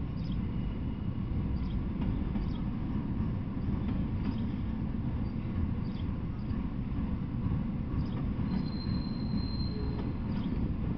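Freight train of autorack cars rolling past: a steady low rumble of steel wheels on rail, broken by scattered clicks. A short, thin, high wheel squeal comes in near the end.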